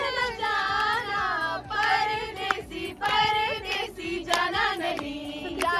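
A group of female voices singing together, with a few sharp clicks or claps among them.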